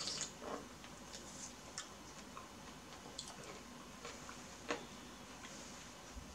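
Soft, irregular wet clicks of a pomelo being eaten: a brief juicy bite into the wedge at the start, then the pulp being picked apart by hand, with the loudest click a little before five seconds in.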